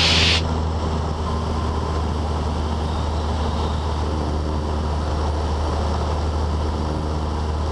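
Cessna 172N's four-cylinder Lycoming engine and propeller droning steadily in flight, heard from inside the cabin.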